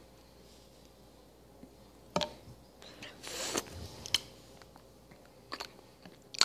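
Quiet room tone, then a few sharp clicks and knocks and a short breathy rustle, from handling and drinking from a small plastic drinkable-yogurt bottle.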